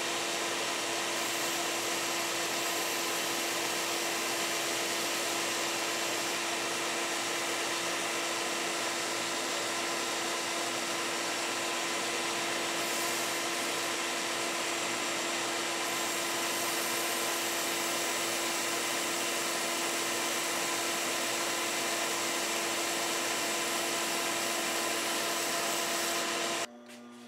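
A 1x30 belt sander runs steadily with a constant hum, while a steel pizza cutter wheel is held against the moving belt to grind its bevel. The sound cuts off abruptly near the end.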